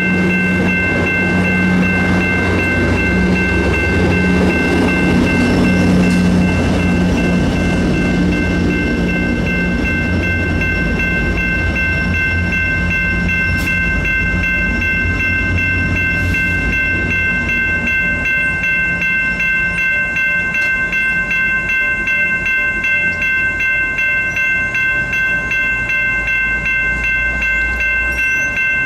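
A train rumbling through, its low rumble fading off in the second half, under the steady high ringing of a grade-crossing bell that keeps sounding throughout.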